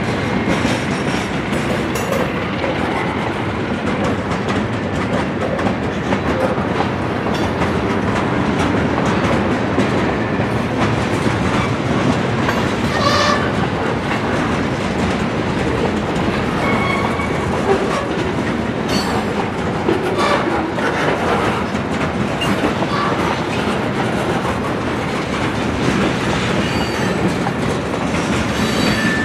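Covered hopper cars of a freight train rolling past at close range: a steady rumble of steel wheels on rail, with clicks as the wheels cross rail joints.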